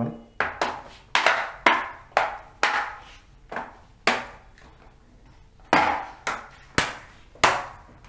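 Plastic snap clips of an HP Pavilion 15 laptop's case clicking into place as the case is pressed shut, about a dozen sharp clicks at irregular intervals.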